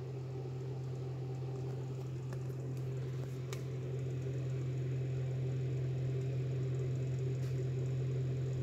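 A steady low mechanical hum, growing slightly louder, with a couple of faint clicks about two and three and a half seconds in.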